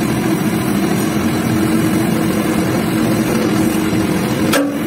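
Hydraulic press running steadily as its ram bears down on a steel driver to push a suspension arm bush out of the arm. A single sharp crack comes near the end.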